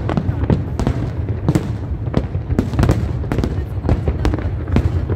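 Fireworks display: aerial shells bursting in quick, irregular succession, sharp bangs several a second over a constant low rumble.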